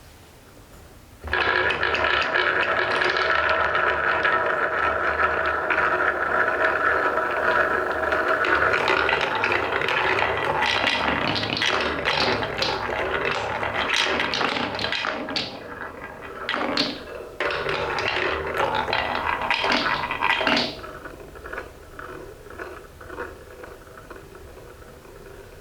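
Balls rolling down a wooden marble run: a steady ringing rumble starts suddenly about a second in, turns into a run of clattering clicks and knocks, and drops to lighter scattered clicks in the last few seconds.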